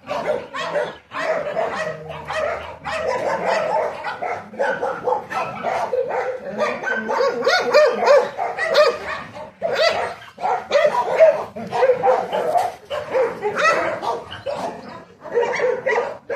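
Dogs barking and yipping almost without pause, many short barks overlapping one another.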